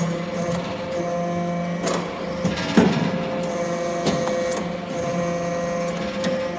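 Hydraulic metal briquetting press running, its pump giving a steady hum and whine, with several sharp metallic knocks at uneven spacing, the loudest about three seconds in.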